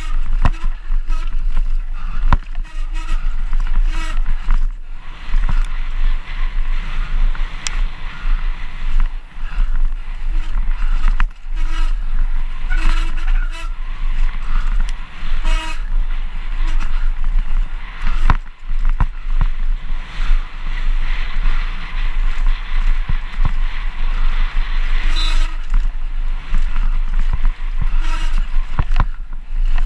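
Downhill mountain bike run heard from a GoPro on the bike or rider: wind buffeting the microphone with a constant low rumble, tyres on a dirt trail, and the bike rattling with many short knocks over roots and bumps.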